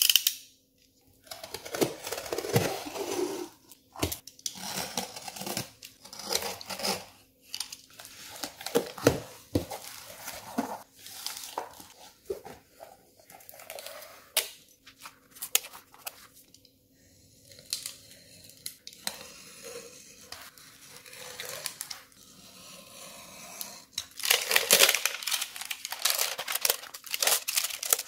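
Cardboard shipping box being unboxed: a utility knife slitting the packing tape, then tape and cardboard flaps tearing, scraping and knocking as the box is opened and emptied. Near the end, plastic wrapping crinkles loudly as it is pulled off the product box.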